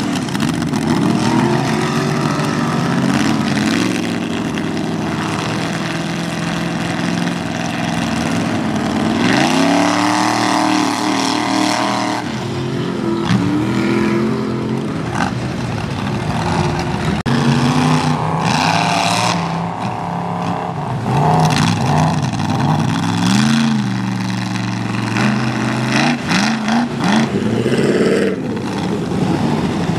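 Mud bog truck's engine revving hard, its pitch climbing and dropping over and over as the throttle is worked.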